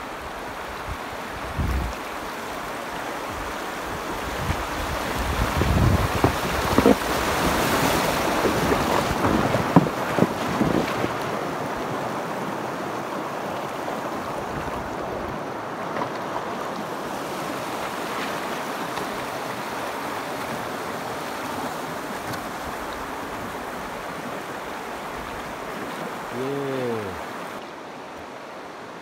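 Shallow river water rushing and rippling over stones, with wind buffeting the microphone. Several low knocks in the first ten seconds, and a brief descending squeak near the end.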